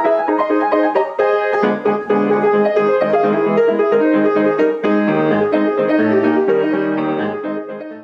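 Intro music played on piano, with lower notes joining about a second and a half in; it fades out near the end.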